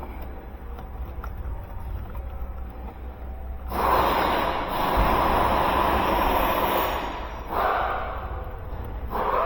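A person's heavy, breathy exhales close to the microphone, three in a row: a long one of about three seconds, then two short ones, over a low steady hum. They come from straining to pull stubborn connectors.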